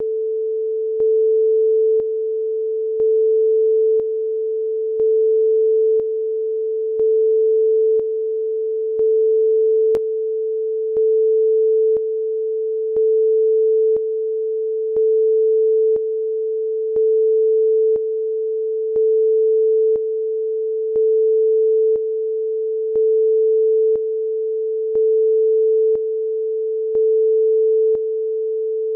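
Steady sine-wave test tone, a single pure pitch just under 500 Hz. It steps between a louder and a softer level every second, with a faint click at each step and a sharper click about ten seconds in. The tone is sped up by 0.1% in a 29.97-to-30 fps conversion.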